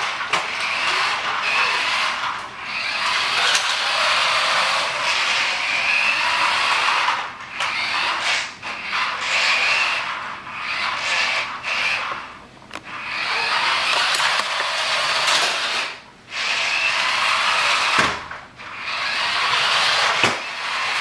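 Hasbro remote-control Republic Fighter Tank's small electric drive motor and plastic gearbox whirring as the toy is driven. It runs in stretches of a few seconds, stopping briefly between them as the control button is pressed and released.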